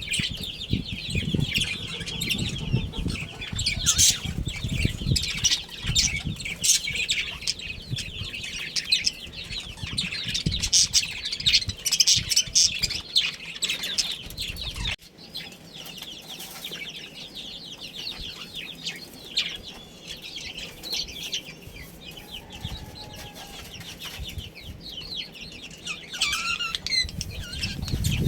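A group of budgerigars chattering and chirping continuously, with wing flapping. The chatter is denser and louder in the first half and drops suddenly about halfway through.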